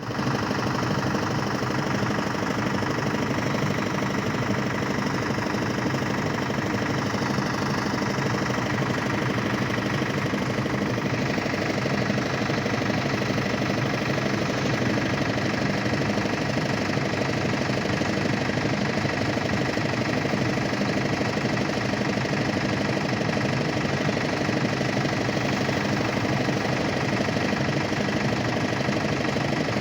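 Engine of a machine mixing stone chips for road repair, running steadily.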